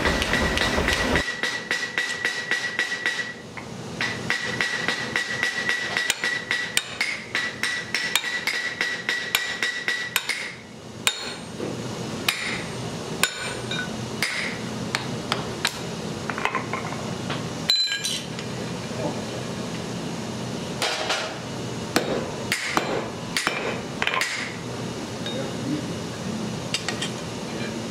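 Blacksmith's hammer striking steel on an anvil: a quick, even run of blows with a steady metallic ring for about ten seconds, then slower, spaced-out strikes.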